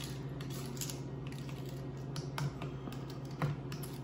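A spoon stirring a thick ketchup, brown sugar and mustard topping in a small glass bowl, with irregular light clicks and taps of the spoon against the glass over a steady low hum.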